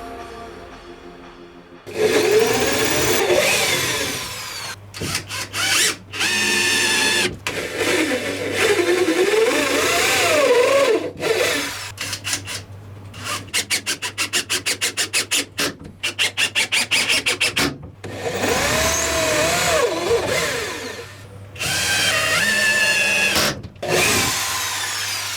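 Power drill run in repeated bursts, its motor whine rising and falling as the trigger is worked. Around the middle comes a run of quick trigger pulses, about four a second.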